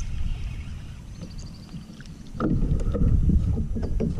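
Wind buffeting the microphone, then from about halfway in a run of splashing and knocking against the kayak as a hooked bass is brought to the side of the boat.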